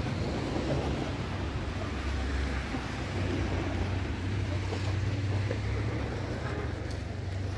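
Outdoor street ambience: a steady low rumble with an even hiss above it, the rumble a little stronger about halfway through.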